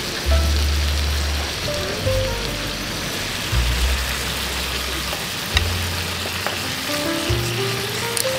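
Marinated sliced beef sizzling and bubbling in its juices on a grill pan over a gas burner, stirred with tongs.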